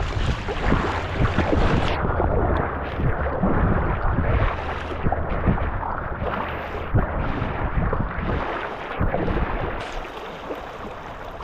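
Water splashing and lapping from a kayak being paddled, with wind rumbling on the microphone. It gets quieter near the end.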